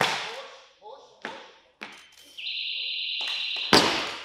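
Crowd shouting at the start, then a steady high electronic buzzer tone for about a second and a half: the referees' down signal for a completed lift. Near the end the barbell's bumper plates hit the lifting platform with a heavy thud, the loudest sound here.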